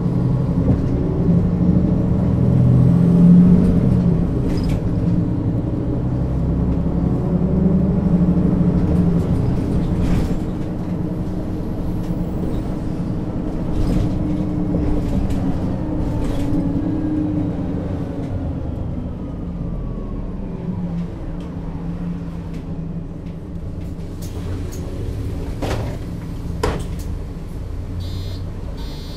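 Mercedes-Benz O 530 G Citaro G articulated bus's diesel engine and Voith automatic gearbox running while the bus drives, heard from on board. The engine pulls hardest in the first ten seconds, then eases off with a faint falling whine, with occasional rattles and clicks.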